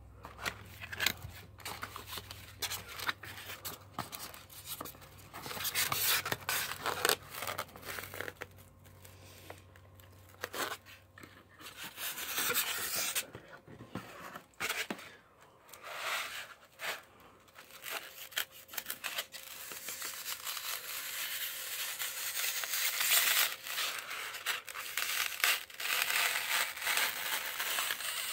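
Cardboard packaging being opened and handled by hand: tearing, scraping and rustling with scattered small knocks and clicks. The rustling grows denser and more continuous in the last third.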